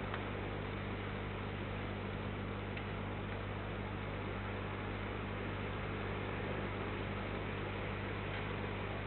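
Steady electrical hum with an even hiss over it, with a faint tick or two.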